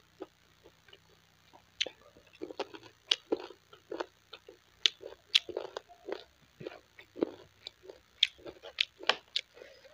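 Chewing a mouthful of rice and curry: irregular wet mouth smacks and sharp clicks, sparse at first and frequent from about two seconds in.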